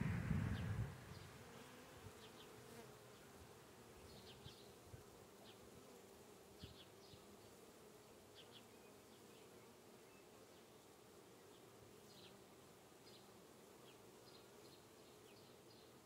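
Faint steady hum of honeybees flying around the entrance of a nuc box as a small swarm moves in. A louder rumble fades out in the first second.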